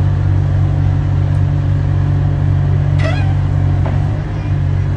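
Small excavator's engine running steadily at a constant pitch as its arm and bucket work in the grave. A brief higher-pitched sound cuts in about three seconds in.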